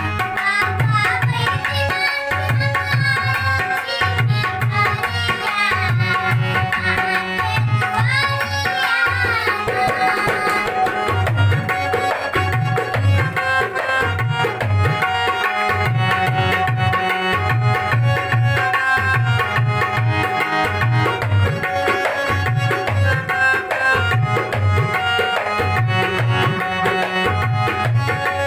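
Harmonium and dholak playing a Maithili devotional song together, the dholak beating a steady repeating rhythm. A voice sings the melody over them for roughly the first ten seconds, then the harmonium and drum carry on alone.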